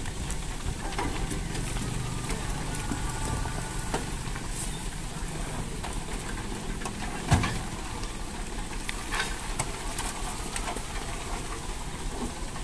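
Dump truck running while it tips a load of broken stone fill, with stones clattering as they slide off the bed. A single thump a little past halfway is the loudest sound.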